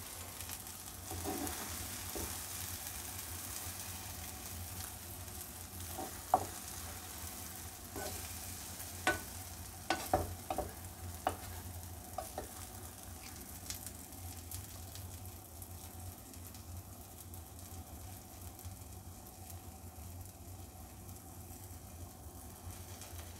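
Omelette sizzling in oil in a non-stick frying pan, the sizzle growing quieter in the second half. Scattered clicks and scrapes of a spatula against the pan, most of them between about six and thirteen seconds in.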